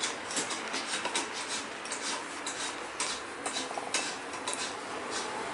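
Irregular metallic clicks and clinks of a spanner turning and seating bolts and nuts on a trike's steel frame as they are tightened.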